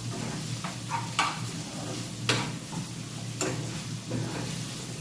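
Curry chickpeas and saltfish sizzling in a pot, with a spoon scraping and knocking against the pot every second or so as they are stirred.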